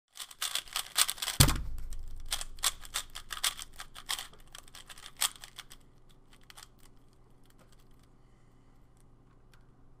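Fast clicking and clacking of a Cubicle Labs Valk M 3x3 speedcube being turned during a speedsolve, with one loud thump about a second and a half in. The turning stops about six seconds in, leaving a few scattered clicks.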